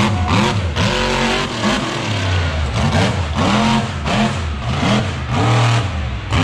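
Monster truck engine revving hard in repeated throttle blips, its pitch climbing and dropping over and over above a steady low rumble.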